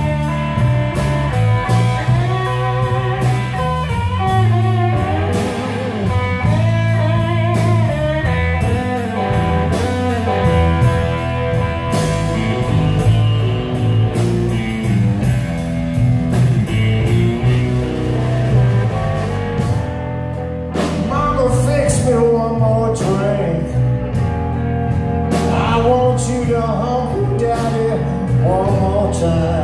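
Live band playing: electric guitar over electric bass and drum kit.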